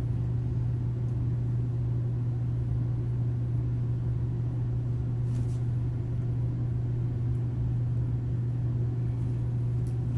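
Steady low machine hum that does not change, with a couple of faint ticks about five seconds in.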